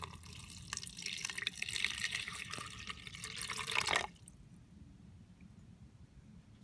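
Water poured in a thin stream from a bottle into a plastic bucket, trickling and splashing for about four seconds, then stopping suddenly.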